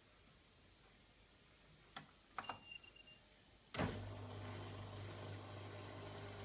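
LG F1056QD front-loading washing machine being started: a couple of clicks and a short electronic beep from the control panel, then about four seconds in a loud click and a steady low electrical hum as the machine powers up.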